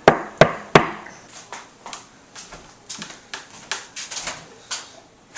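Three loud, quick knocks on a front door, then a series of softer footsteps walking up to it.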